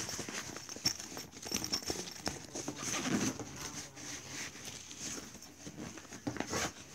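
Fabric rustling and crinkling as a nylon overnight bag is handled and turned over, with scattered small clicks and taps from its straps and fittings.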